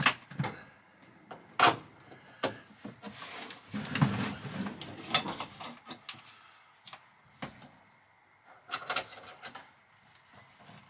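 Thick battery cables being handled and pushed into place at battery terminals: scattered clicks and knocks with rustling, loudest at the start and around 4 to 5 seconds in.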